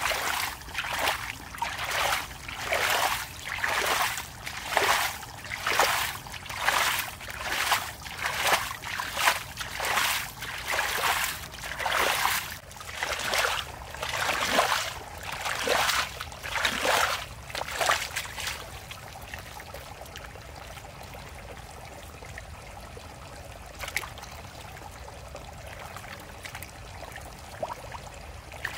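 Hands scooping and sloshing through shallow muddy water and mud, splashing rhythmically about once a second. The splashing stops about two-thirds of the way through, leaving only faint, steady background noise.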